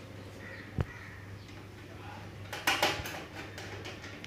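Metal clicks and clinks of a screwdriver and screw against the steel PC case at the power supply's mounting hole: one sharp click about a second in, then a quick cluster of louder clinks near three seconds.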